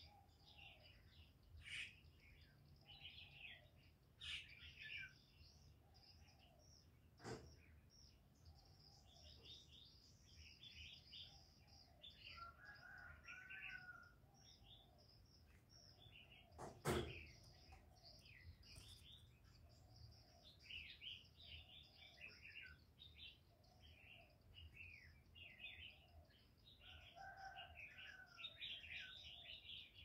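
Faint chirping of small birds throughout, with a soft low call repeating about once a second beneath it. Two sharp clicks stand out, one about seven seconds in and a louder one around seventeen seconds.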